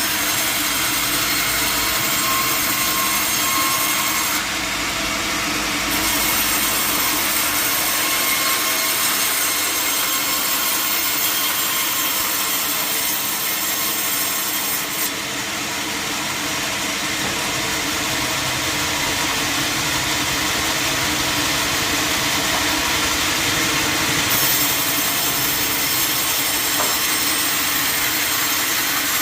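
A large sawmill saw cutting through a log: a loud, steady sawing noise that runs on without a break.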